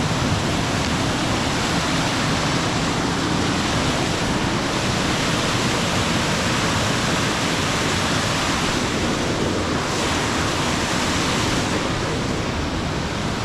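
Steady rush of flowing water from the creek and falls.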